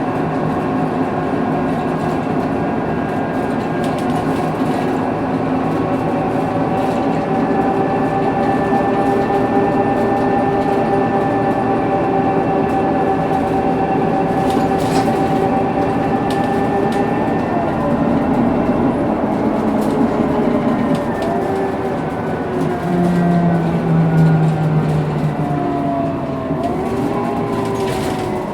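Scania K230UB bus's rear axle differential whining while under way, a set of steady high whines over the running of its Scania DC9 diesel and ZF Ecomat automatic gearbox. The whine holds pitch for most of the time, then slides down in the last several seconds as the bus slows. There are a few sharp rattles along the way.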